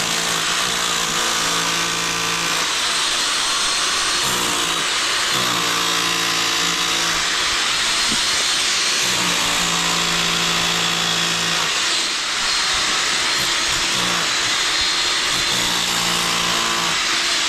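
Electric power drill running continuously under load, drilling a hole, its motor tone wavering as the bit bites; it winds down at the very end.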